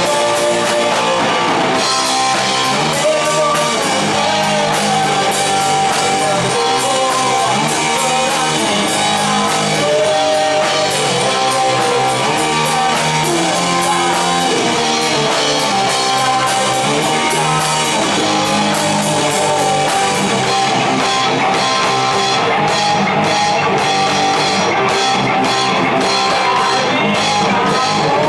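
Live rock band playing: electric guitar on a semi-hollow-body guitar and a drum kit, with a woman singing. From about twenty seconds in the cymbal strokes stand out, about two a second.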